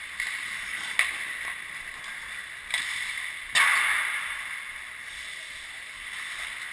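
Ice hockey play in an indoor rink: skates scraping the ice under a steady hiss, with sharp knocks of sticks or puck about a second in and near the three-second mark. A louder scraping burst follows a little later and fades over about a second.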